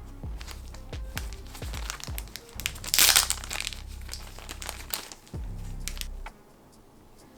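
Plastic packaging crinkling and rustling as a boxed figure is unpacked, with scattered sharp crackles and a loud burst about three seconds in. Background music with a low bass line plays underneath and stops a little after six seconds in.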